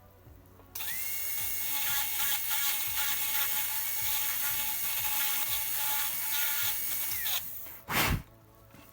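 Dental handpiece cutting a class I cavity in a lower molar. It starts suddenly about a second in, its whine rising to a steady pitch and holding, then winding down near the end, followed by a short loud burst.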